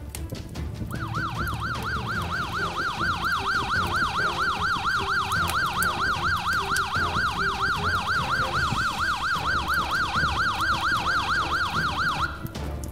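Electronic fire-engine siren in a fast yelp, sweeping up and down about four times a second. It starts about a second in and cuts off near the end, over background music.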